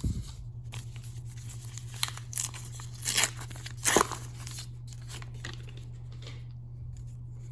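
Hockey card pack wrapper being torn open and crinkled: a few short sharp rips and crackles in the first half, then only a steady low hum.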